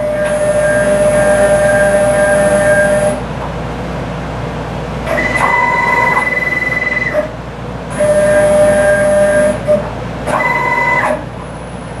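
Stepper motors of a DIY CNC router driving the gantry through four moves, each a steady whine at its own pitch with short pauses between.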